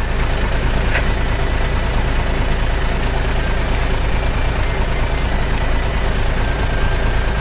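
Steady loud rush of water being poured into an Aqua Play toy water course, with a deep rumble beneath the hiss.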